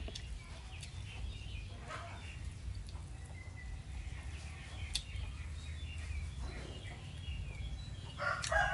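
Faint rural background of small birds chirping over a low steady rumble, with a few light clicks. A rooster starts crowing near the end.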